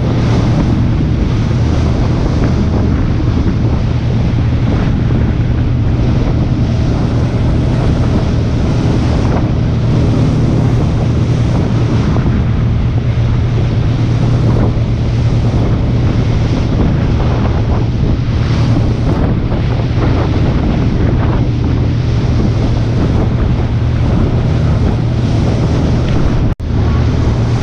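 Wind buffeting the microphone: a loud, steady rumble with a hiss over it, broken briefly by a cut near the end.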